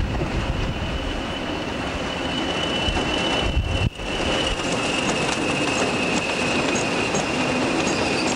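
Train on the move with a steady, high-pitched steel wheel squeal over a low rumble. The sound drops out briefly about four seconds in.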